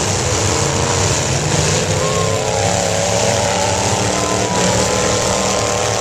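Several demolition derby cars' engines revving hard together, their pitches rising and falling over one another in a steady, loud din.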